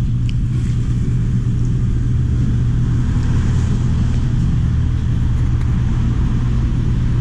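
Steady low rumble of street traffic, unchanging throughout.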